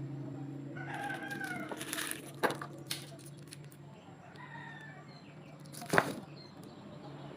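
Short bird-like calls and a few clicks over a steady low hum, with one sharp knock about six seconds in.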